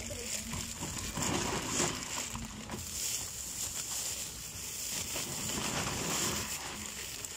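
Clear plastic bags and instant noodle packets rustling and crinkling in an irregular run as they are handled and packed by hand.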